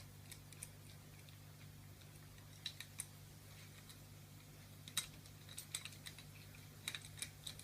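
Scattered light clicks and taps of small scooter parts being handled during assembly, over a faint steady low hum.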